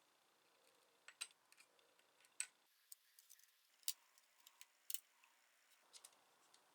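Irregular small clicks and taps of hard plastic and metal parts being handled, a few of them sharper and louder than the rest.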